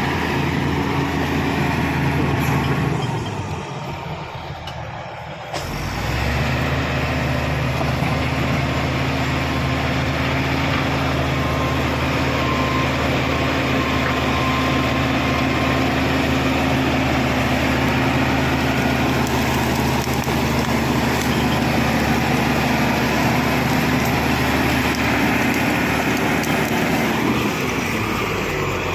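Shantui SD16 bulldozer's diesel engine running steadily under load. About three seconds in it eases off briefly, then comes back up suddenly and holds steady.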